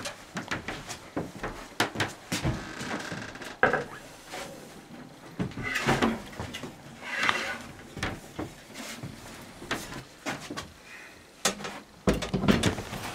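A metal 35 mm film reel and projector gear being handled: a string of clicks, knocks and metallic rattles. A low rumble comes in near the end.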